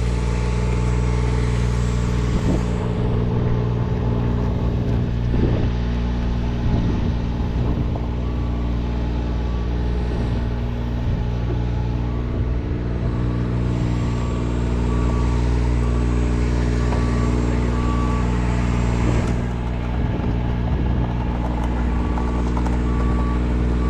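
Work truck engine running steadily at a low pitch. From about eight seconds in, a faint back-up alarm beeps at an even pace as the truck reverses.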